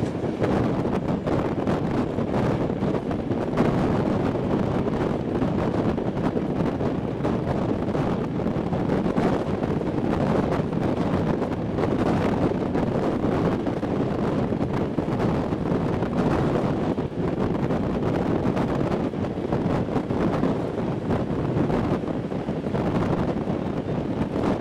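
Steady wind noise on the microphone at an open window of a moving passenger train, over the carriage's continuous rolling noise on the track.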